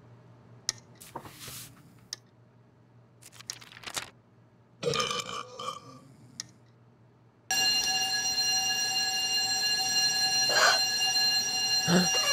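A few scattered clicks and small cartoon sound effects, with a brief louder sound about five seconds in. Then, about seven and a half seconds in, a fire station alarm starts suddenly and rings loudly and steadily.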